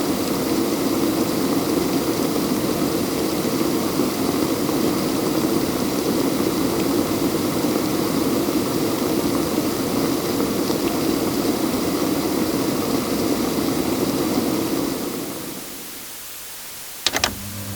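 A household electrical appliance's motor running with a steady rushing noise, dying away about fifteen seconds in. Two sharp clicks follow near the end.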